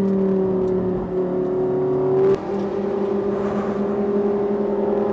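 Lamborghini Gallardo LP 570-4 Super Trofeo race car's V10 engine running at steady low revs on the pace lap. Its pitch eases down slightly over the first couple of seconds, then the sound changes abruptly about halfway through and runs on steadily.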